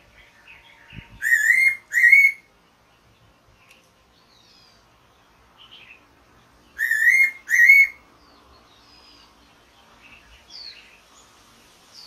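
Fairy pitta calling: a loud two-note whistle given twice, about five seconds apart, each note a short slurred whistle. Fainter chirps of other birds come in between.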